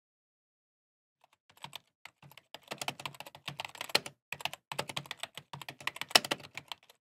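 Computer keyboard typing: a quick, irregular run of key clicks that starts about a second and a half in.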